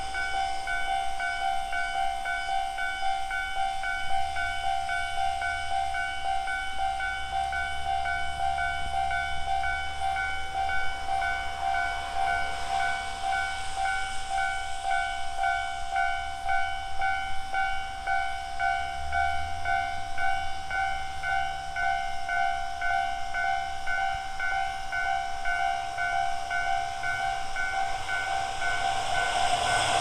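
Japanese railway level-crossing electronic warning bell, the standard tone, ringing over and over at a slower tempo than usual, which sounds a little odd. Near the end an arriving train starts to grow loud beneath it.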